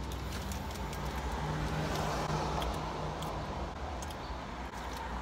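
Steady road and engine noise inside a moving car's cabin, with faint scattered clicks.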